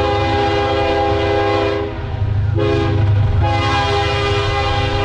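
Diesel freight locomotive's multi-chime air horn sounding a long blast, a short blast about two and a half seconds in, and another long blast starting near the end. Underneath, the locomotives' diesel engines give a steady low rumble.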